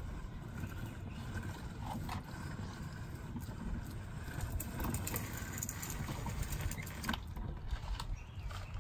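Suncast Aquawinder automatic hose reel winding in a garden hose under its water-driven hydraulic motor, which has just been rebuilt: a steady low rumble with a few scattered clicks as the hose is drawn onto the drum.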